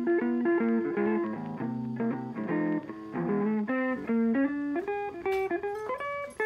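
Background music: a guitar-led instrumental track playing a plucked, melodic line.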